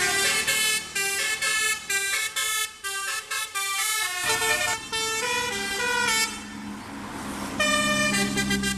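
A bus's 'telolet basuri' musical air horn playing a quick tune of changing notes. A bus engine comes in underneath about halfway through, and the horn breaks off briefly near the end before starting again.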